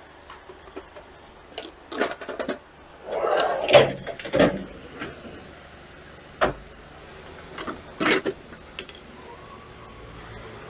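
Metal hand tools clinking and knocking: a socket and wrench being handled and fitted, about ten separate sharp clanks with a short rattle about three seconds in.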